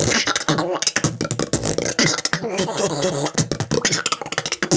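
Beatboxing: a fast run of mouth-made drum clicks and snares mixed with pitched vocal sounds.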